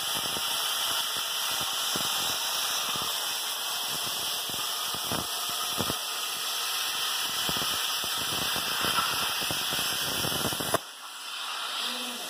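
CNC plasma cutter torch cutting through a metal sheet: a steady hiss with irregular crackling pops. It cuts off suddenly about eleven seconds in, when the arc goes out.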